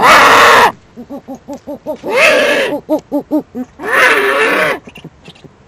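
Eurasian eagle owls calling at a food handover: three loud, harsh screeching calls about two seconds apart, with rapid short hooting notes between them.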